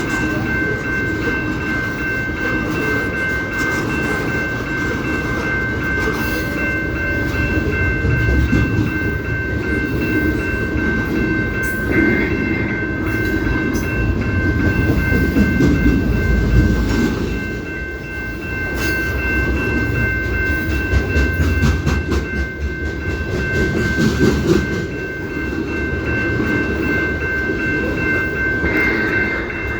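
CP Rail train rolling past, its cars rumbling and clacking over the rail joints, with a steady high-pitched squeal ringing over the rumble.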